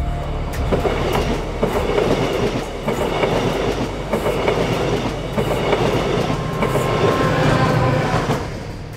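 TransPennine Express Class 68 diesel-hauled train passing close by at speed, its coaches running over the rails, with the sound easing off just before the end.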